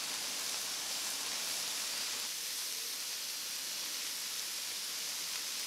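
Skewered chicken kebab pieces sizzling steadily in a hot cast-iron grill pan, a constant hiss of frying.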